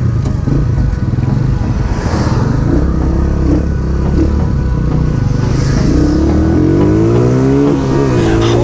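Rusi Macho 150 motorcycle's single-cylinder four-stroke engine, stock but fitted with a 30 mm carburettor, running steadily at low speed, then revving up in a rising pitch from about six seconds in, dipping briefly near the end and rising again.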